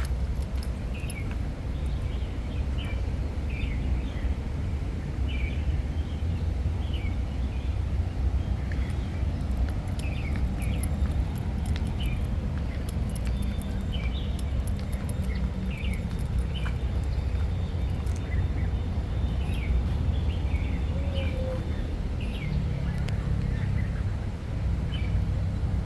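Birds chirping, short calls repeating about once a second, over a steady low rumble.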